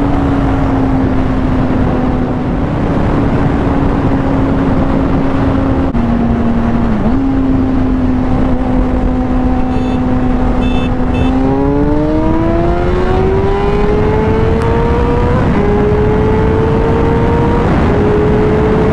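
Honda CBR600RR sportbike's inline-four engine, first cruising at steady revs under heavy wind rush, then accelerating hard a little past halfway. Its pitch climbs, drops twice at quick upshifts, and climbs again after each.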